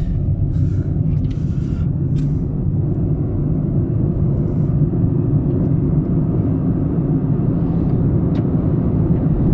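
A 2019 Chevrolet Spark with a CVT being driven, heard inside the cabin: a steady low rumble of engine and road noise. A few light clicks come in the first two seconds.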